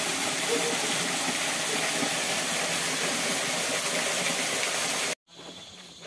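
Steady, loud rushing of a waterfall, an even full hiss. About five seconds in it cuts off abruptly to a much quieter shallow stream with light footsteps on stones.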